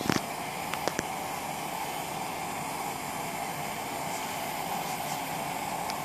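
Propane torch burning steadily in a tin-can melting furnace, a constant hiss. A few sharp metallic clicks come in the first second as the top of the can is handled.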